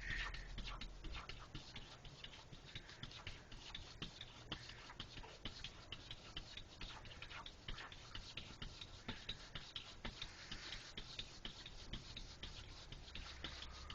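Faint, rapid, irregular clicking and ticking.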